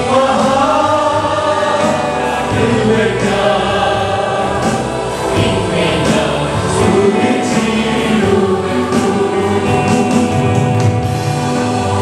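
Congregation singing a worship song together with musical accompaniment.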